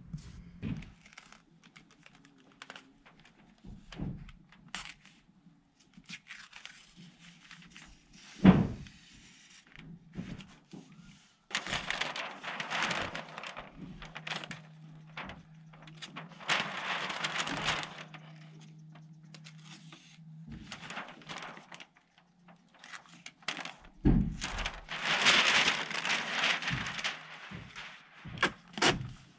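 Tyvek house wrap crinkling and tearing as it is folded and taped around a window rough opening, in several bursts a few seconds long, with two sharp thunks, one about eight seconds in and one near the end.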